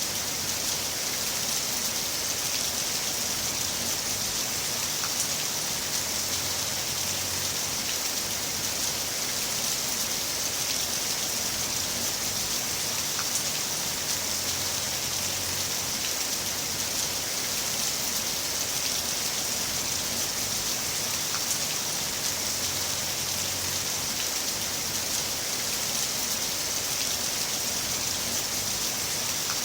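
Heavy rain falling steadily, an even hiss of drops hitting a surface with faint scattered drip ticks.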